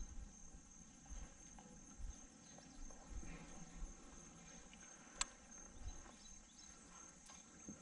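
Faint outdoor quiet: insects keep up a steady high-pitched drone under soft low rumbling, with a single sharp click about five seconds in.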